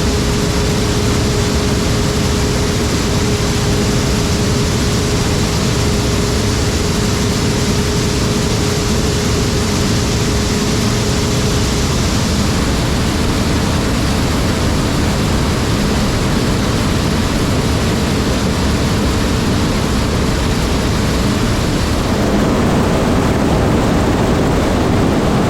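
Large diesel harvest machinery running steadily under load: an even, loud rush of engine and machine noise with a steady whine that stops about halfway through. It gets slightly louder in the last few seconds.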